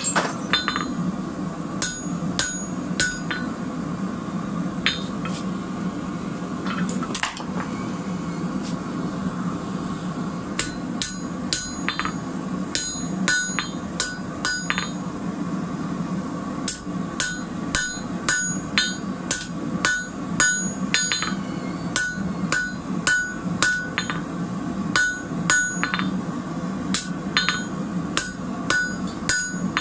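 Hand hammer striking a red-hot square steel bar on an anvil, each blow ringing; the strikes come sparsely at first, then faster, about two a second, in the second half. A steady low hum runs underneath.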